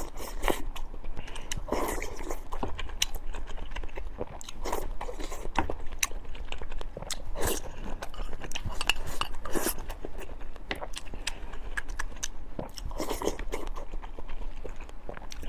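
A person chewing and biting food, steamed pork, with many short wet mouth clicks and crunches throughout.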